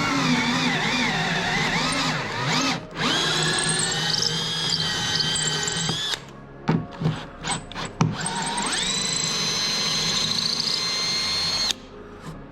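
Electric power drill boring bolt holes for a trolling motor mount. The motor whine wavers in pitch as the bit bites, stops just before 3 seconds in, then spins up again. A few sharp knocks come around 7 to 8 seconds. The drill then runs up again at a steady pitch and stops shortly before the end.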